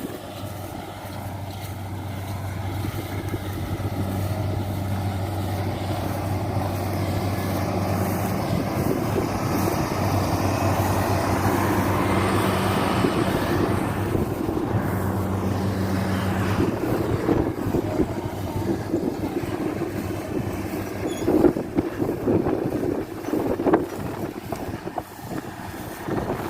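Rice combine harvester's engine running with a steady drone, over wind noise on the microphone. The drone fades out after about seventeen seconds, leaving rustling and a few sharp knocks.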